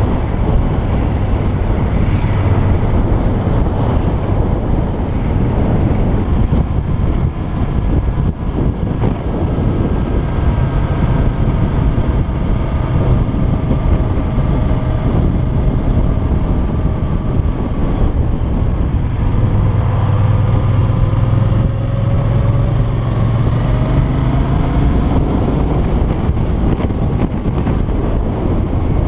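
Wind rushing over a helmet-mounted camera on a moving Yamaha TDM 900 motorcycle, with its parallel-twin engine running underneath, the engine's pitch rising and falling as the revs change through the bends.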